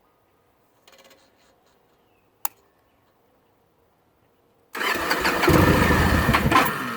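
2009 Victory Kingpin's V-twin engine being cranked over to restart after sitting hot for about ten minutes, the hard-starting condition the owner is showing. The starter and engine noise cut in suddenly about two-thirds of the way through, uneven and loud, and begin to ease off near the end. A single sharp click comes a couple of seconds before it.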